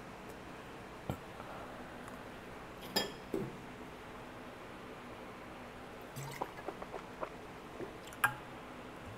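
Quiet drinking from a glass bottle: soft gulping and swallowing clicks, with a ringing clink of the glass about three seconds in and another click near the end.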